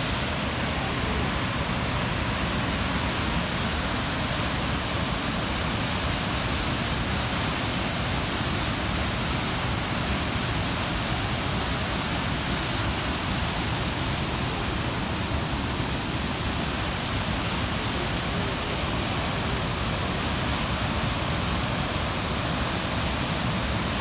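Athabasca Falls: a large waterfall pouring through a rock gorge, its white water rushing in a loud, steady, unbroken noise.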